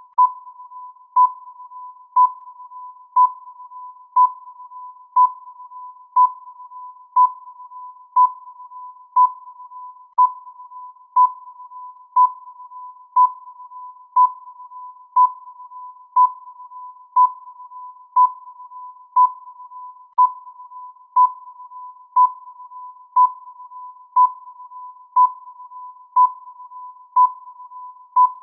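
Electronic countdown-timer beep near 1 kHz, sounding once a second at an even pace, each beep dying away into a softer steady tone at the same pitch before the next.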